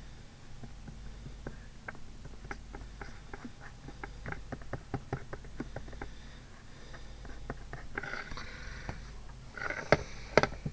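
Fingertip rubbing and dabbing paint on the surface of a box: a run of light scattered ticks, a short scratchy rub about eight seconds in, and two sharp knocks near the end.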